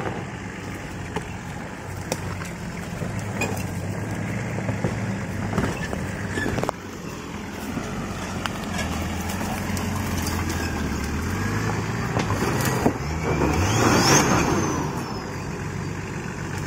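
Nissan Patrol's RD28 straight-six turbodiesel with a compound turbo setup, working under load as it crawls up a rocky 4x4 track. The revs climb through the second half and peak near the end with a whistle that rises and falls. Scattered knocks come from the wheels and body over the rocks.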